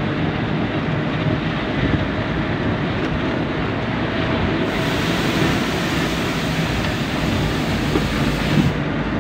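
Truck driving along a road, heard from inside the cab: a steady engine drone and road rumble, with a brighter hiss for a few seconds in the middle.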